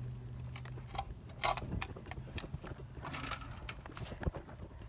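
Broken pieces of a smashed satellite receiver, its circuit board and metal chassis, crunching and scraping underfoot on a concrete floor: scattered small clicks and crackles, with two short scraping rustles about one and a half and three seconds in. A low steady hum runs under the first three seconds.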